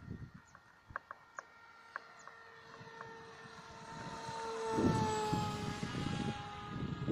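Electric motor and propeller of a Dynam Hawksky V2 RC plane whining as it flies past. The whine grows louder and drops in pitch as the plane goes by, about two thirds of the way in, and a rough low noise joins it then. A few light clicks come in the first seconds.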